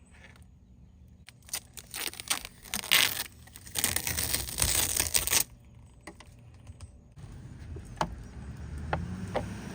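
Packaging crinkling and tearing as a new third brake light is unwrapped, in a run of loud rustling from about one and a half to five and a half seconds in. Then a few sharp clicks over a steady low hum.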